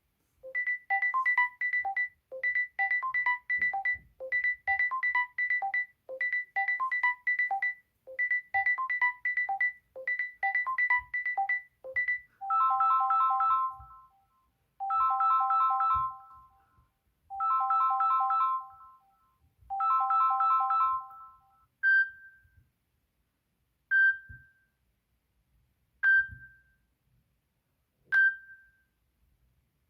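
Samsung Galaxy S10 ringtones played in turn. A quick repeating melodic phrase comes about every two seconds for the first twelve seconds. Then a chiming chord pattern repeats four times, and in the last eight seconds single short pings sound about every two seconds.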